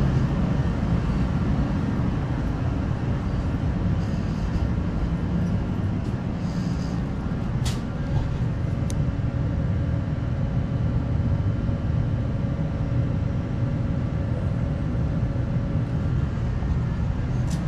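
Kerosene shop heaters running steadily, a constant low rumble, warming a cold shop. Two short sharp clicks come about halfway through.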